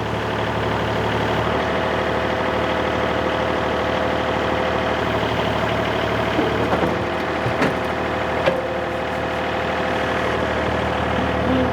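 Excavator's diesel engine running steadily while it is operated. A steady whine comes in about halfway through, with a few sharp knocks in the second half.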